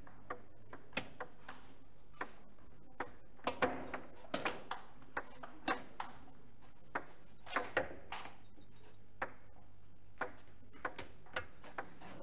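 Table tennis rally: a celluloid ball clicking off the rubber bats and bouncing on the table, irregular sharp ticks, some in quick pairs, over a steady hall background.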